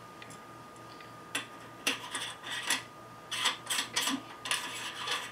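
Hands working the fittings at the rear of a Vixen VMC110L telescope: after about a second, a run of short scrapes and clicks.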